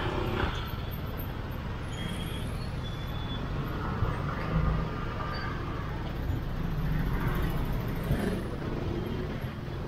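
Street traffic: motorbike and tuk-tuk engines running with a steady low rumble of road noise, swelling briefly louder about halfway through.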